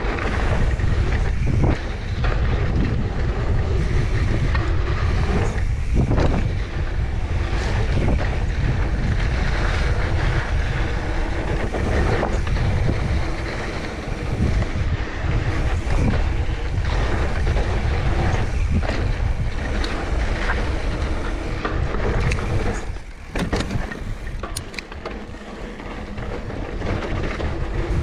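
Wind buffeting a GoPro Hero 9's microphone on a moving mountain bike, a heavy low rumble with frequent knocks and rattles from the bike over rough ground. It eases briefly near the end.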